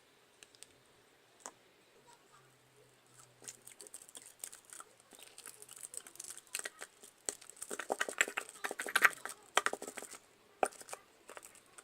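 Glue being squeezed out of a plastic bottle: irregular clicks and crackles of the plastic with the glue, sparse and faint at first, busiest near the end.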